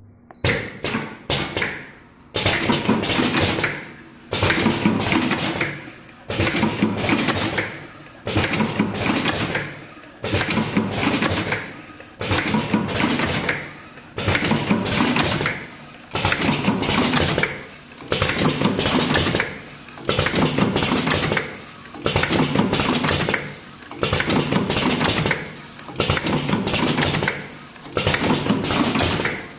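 Automatic cartoning machine running, a clattering machine cycle repeating about every two seconds. Each cycle starts suddenly and fades, after a few quick clicks near the start.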